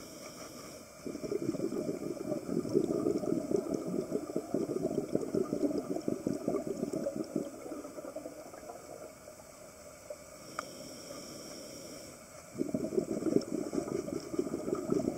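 Scuba diver breathing through a regulator underwater: a long bubbling exhale lasting several seconds, a quieter stretch with a short hiss of the next breath in, then bubbling again near the end.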